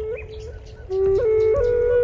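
Music: a wind instrument plays a slow melody of long held notes. It drops back near the start while a quick run of short high chirps sounds, then returns at full strength about a second in.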